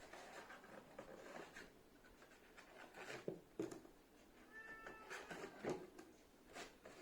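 Faint, short meow of a domestic cat about four and a half seconds in, amid light rustling and small clicks of handling.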